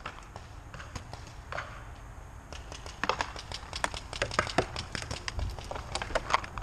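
Paintball markers firing during a game: an irregular series of sharp pops, scattered at first and coming thick and fast in the second half.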